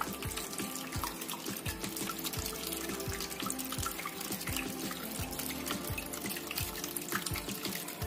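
Water streaming from the small spouts of a tabletop fountain and splashing into its basin, a continuous trickle and splash, over background music with sustained notes.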